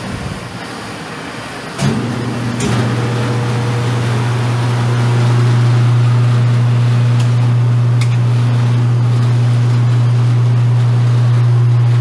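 Stoelting soft-serve ice cream machine starting up: a click about two seconds in, then a steady low motor hum that grows louder over the next few seconds and holds. The technician blames much of the machine's noise on the heavy unit mounted on top of it.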